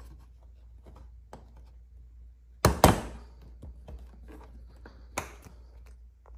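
Plastic right-side service cover of a Can-Am Spyder RT being pulled off by hand: a loud double snap a little under three seconds in as its latches let go, another sharp snap about five seconds in, with light plastic taps and clicks between.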